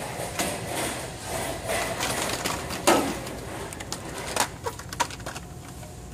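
Blister-packed Hot Wheels cars being flipped through on store peg hooks: cardboard-and-plastic packs clacking and rustling against each other, with a sharper knock about three seconds in.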